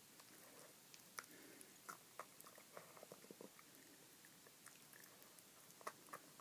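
A small dog faintly chewing and gnawing on a pig's trotter, with irregular soft clicks and crunches of its teeth.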